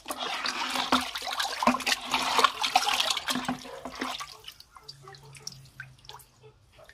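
Brown IMO microbial culture splashing and sloshing as it is handled with a plastic measuring jug, settling into fainter scattered drips about four seconds in.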